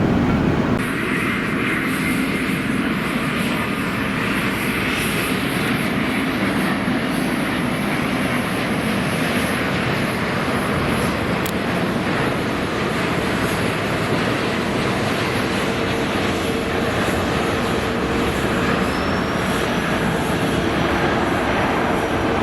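Airliner engines running, a loud, steady rush of noise with a constant hum underneath.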